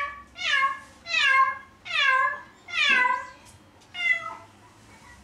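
A domestic cat meowing over and over, about one meow a second, each call falling in pitch; the meowing stops about four seconds in.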